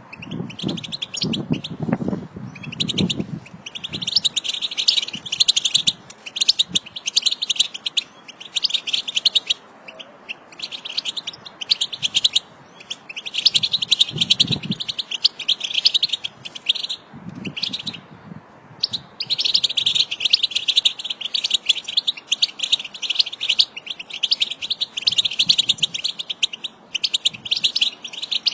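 A flock of European goldfinches twittering: rapid, high-pitched chatter in runs of a few seconds, with short breaks between them.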